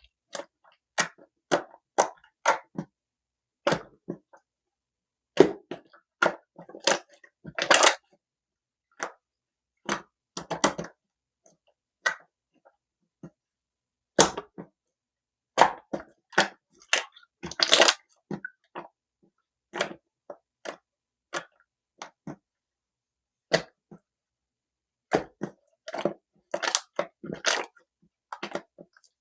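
Slime being handled, giving short crackling, popping bursts at an irregular pace with silent gaps between them.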